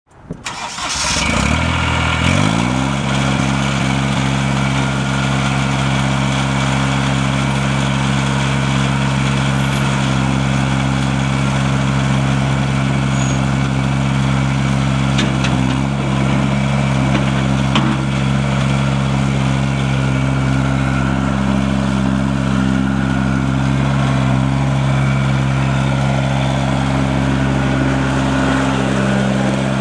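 Diesel engine of a Terramite T9 loader backhoe starting and rising in pitch over the first couple of seconds, then running at a steady speed.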